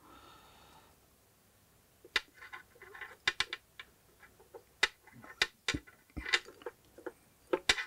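Light, irregular clicks and rustles of fingers handling the wires, spade connectors and small circuit board of a desoldering handpiece, starting about two seconds in.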